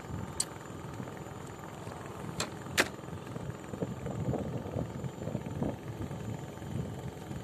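Handling noise as a caught giant freshwater prawn is unhooked: three sharp clicks in the first three seconds, the third the loudest, then a couple of seconds of scuffling, over a steady low rumble.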